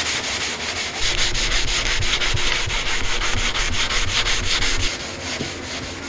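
Hand block sanding with 320-grit paper on a yellow sanding block over guide-coated 2K high-build primer on a car's rear quarter panel, a steady gritty rasp in quick, even back-and-forth strokes. This is the block-out stage that levels the primer and shows up low spots and sand scratches.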